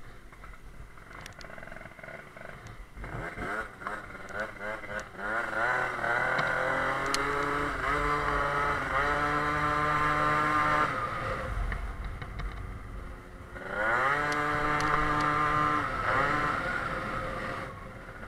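Sachs Speedjet RS scooter's tuned two-stroke engine, fitted with a Yasuni R exhaust and a 19 mm Motoforce carburettor, pulling away under throttle. Its pitch climbs about six seconds in and then holds steady, drops off around eleven seconds, and climbs and holds again from about fourteen seconds before easing off near the end.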